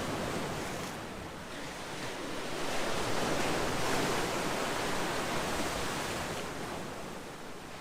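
Calm sea waves washing onto a shore: a steady hiss of surf that ebbs, swells to a crest about halfway through, then slowly draws back.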